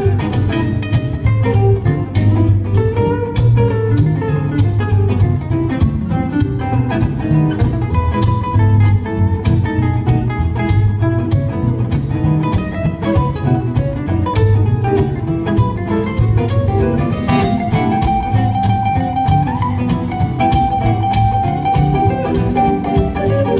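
Guitar trio playing live: two acoustic flat-top guitars and an archtop in a fast picked tune over a steady rhythm and bass notes. About two-thirds of the way through, a lead line holds a long high note.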